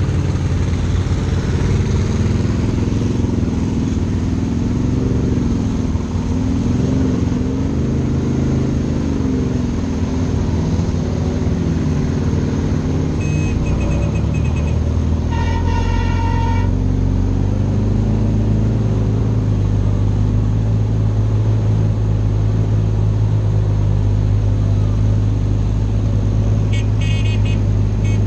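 Off-road mud vehicles' engines running and revving, their pitch rising and falling, settling into a steady low drone about halfway through. A vehicle horn sounds for about a second just past the middle, with shorter high toots just before it and near the end.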